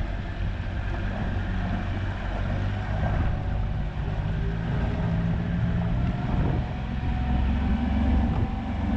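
Boat motor running steadily under way, a low rumble with wind and water noise over it.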